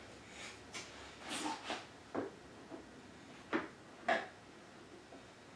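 Scattered light knocks and scrapes of metal parts being handled as an FMF slip-on muffler is fitted onto a dirt bike's exhaust header pipe. There are about half a dozen short knocks; the sharpest two come about three and a half and four seconds in.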